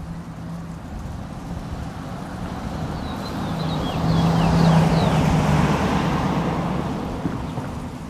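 A road vehicle passes by: a steady low engine hum and tyre noise build to a peak around the middle and then fade away. A few faint, high, quick bird chirps are heard just before the loudest point.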